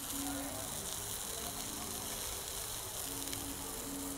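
Pork chops sizzling in a hot pan while their sides are seared: a steady frying hiss, with a faint low buzz that comes and goes.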